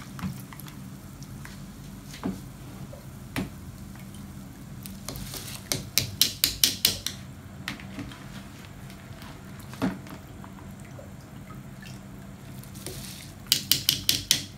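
Soaked rice being scooped with a metal mesh strainer and tipped into a pot of boiling water: water dripping and splashing over a steady low hum, with two runs of quick sharp taps from the strainer, one midway and one near the end.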